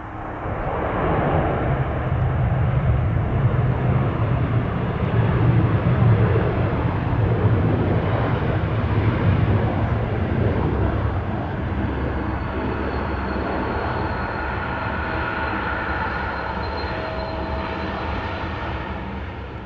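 Airbus A350-900 jet engines, Rolls-Royce Trent XWB turbofans, running loud as the airliner passes. The sound swells within the first second, holds as a heavy rumble, and slowly fades near the end, with a faint falling whine in the second half.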